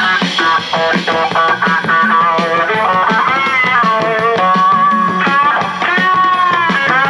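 Guitar music with drums played through the speakers of a Panasonic RS-466S boombox. It begins with quick picked notes, then about three seconds in turns to long, bending lead guitar notes.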